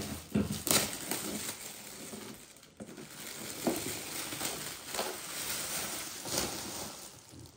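Gift wrapping paper and metallic foil being torn open and crumpled by hand, in irregular crinkling rustles with a few sharper crackles.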